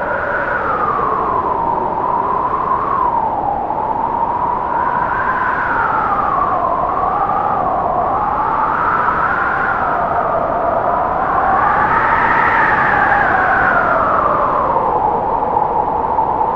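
Strong wind sound effect: a howling whistle that rises and falls in pitch over a steady rushing noise. It is loudest and highest about three-quarters of the way through.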